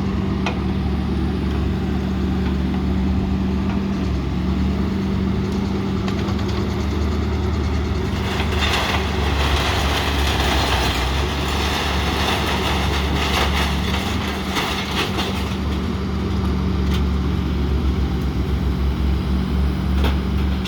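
Truck engine idling with a steady low hum; a louder rushing noise joins for several seconds around the middle.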